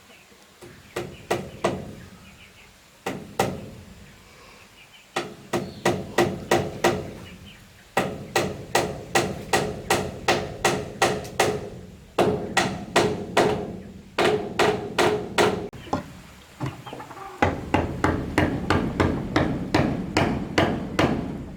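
Hammer blows on wood, about two to three a second, in runs of several strikes broken by short pauses, each blow with a brief ringing tone.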